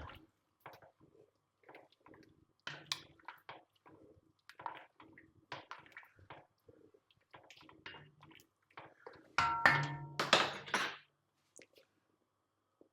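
Kitchen utensil clinks and scrapes against a pot of soup, with a louder clatter and a short ringing clink between about nine and eleven seconds in.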